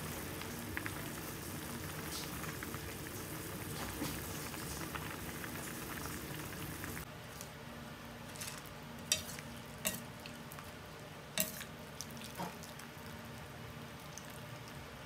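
A steel pot of chicken feet boiling hard, a steady bubbling. About seven seconds in it gives way to a few sharp metal clinks of a strainer ladle against the pot as the boiled feet are scooped out.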